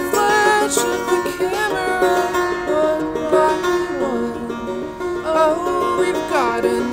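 Live band music led by plucked string instruments, with notes that slide in pitch now and then.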